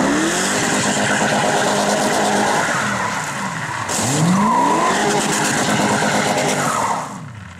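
Toyota Chaser's 1UZ-FE V8 revving hard with its tyres squealing as the car slides through a drift. The engine note climbs at the start and again about four seconds in, holding high between, and the sound falls away about seven seconds in.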